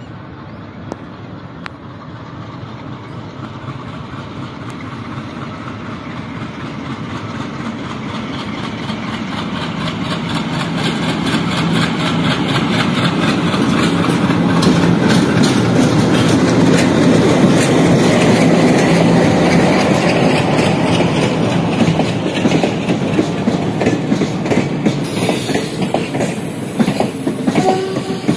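WDM3A diesel locomotive's ALCO engine chugging as it pulls out under load, growing louder as it comes up and passes, loudest about halfway through. Then the coaches roll by with a steady clickety-clack of wheels over rail joints.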